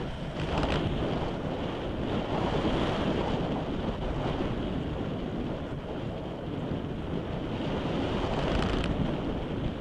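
Wind rushing over the microphone of an FPV model aircraft in gliding flight: a steady rushing noise that briefly flares up twice, once near the start and again near the end.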